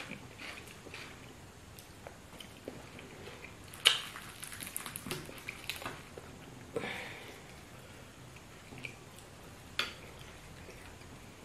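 Eating by hand: chewing and wet mouth sounds of soft banku and fried fish. A sharp click about four seconds in is followed by a run of short crackles as the crisp fried fish is pulled apart with fingers, with another click near the end.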